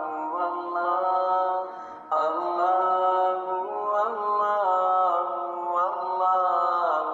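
Background vocal music: a voice chanting in long held notes that slide from one pitch to the next, with a short break about two seconds in.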